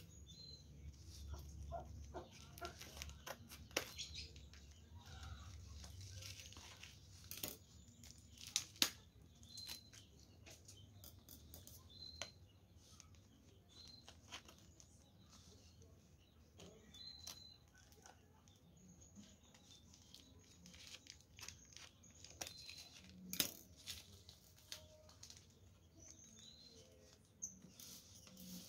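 Faint rustling and tearing of paper wrapping at the base of a small potted plant, with scissor snips and sharp clicks scattered throughout. Short, faint bird chirps come every few seconds.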